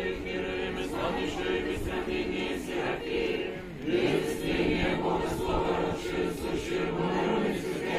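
Choir singing an unaccompanied Orthodox liturgical chant in long held notes; the singing dips briefly just before four seconds in and resumes louder.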